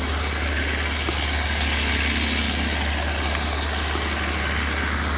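A homemade Vietnamese rice combine harvester's 120-horsepower engine running steadily under load while harvesting, an even deep drone with no change in pitch. A faint, high, regular chirp sounds about twice a second.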